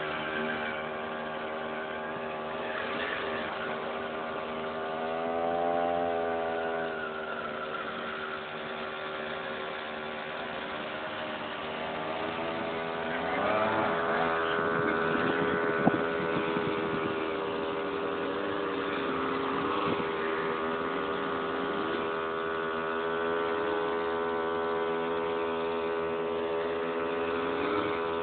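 Motorized skateboard's small engine running steadily, its pitch rising and falling now and then as it speeds up and slows, with one sharp knock about halfway through.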